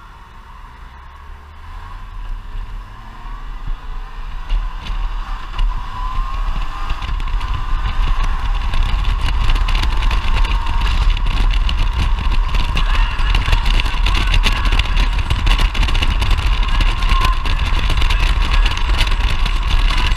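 Motorcycle pulling away from a turn and speeding up: the engine's low note rises and wind rushes over the helmet-mounted microphone, growing louder as speed builds. From about eight seconds in it holds steady and loud at road speed, with a thin steady tone running underneath.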